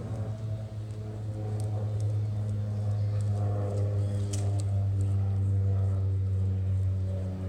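An engine running steadily nearby with a low, even hum, with a few faint high clicks over it.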